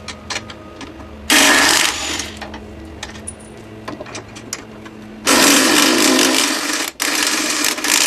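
Small impact wrench hammering in bursts as it loosens bolts: one burst about a second in, then a longer run near the end broken by a short pause. Light clicks of tool handling come between the bursts.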